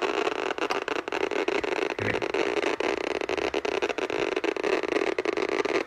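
Babbel Counter Model 610 Geiger counter's speaker clicking very fast, the clicks crowding into a steady crackle. Its 1B85 Geiger tube is picking up radiation from the uranium oxide glaze of a Fiestaware custard cup.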